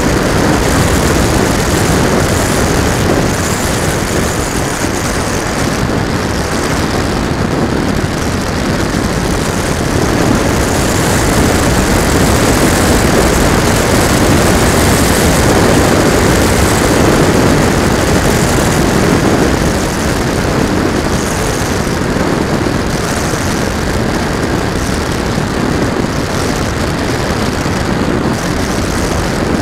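Airflow and wind rushing over the onboard camera of a radio-controlled model plane in flight, with the plane's motor and propeller running under the rush. The noise is steady, a little louder for several seconds in the middle, and eases about two-thirds of the way through.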